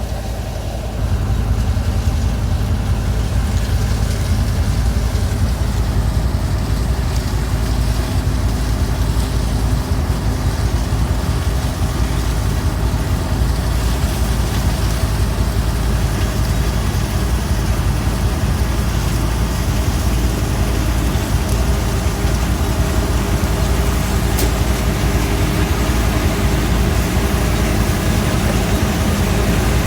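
Heavy farm machinery engine running steadily under load, growing louder about a second in.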